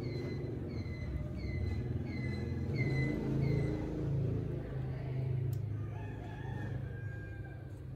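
An animal's short, high-pitched calls, about seven in a row roughly 0.6 s apart, stopping around halfway; fainter drawn-out tones follow near the end, over a steady low rumble.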